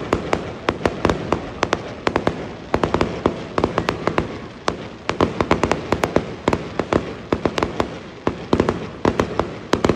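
Aerial fireworks going off: a rapid, irregular run of sharp bangs and crackles, several a second, over a continuous low rumble.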